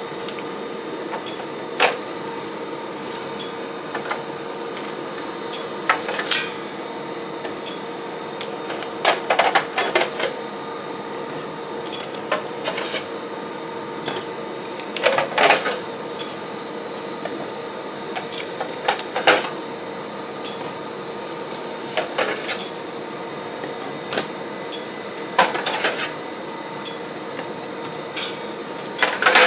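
Hands handling UPS batteries and their wiring: scattered sharp clicks and knocks, with short bursts of hard clatter every few seconds, over a steady background hum.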